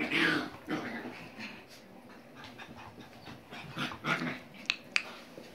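Basset Fauve de Bretagne puppies making small noises as they play-fight, in irregular short bursts: a loud one at the start, more about a second in and about four seconds in, and two brief, sharp, high yips near the end.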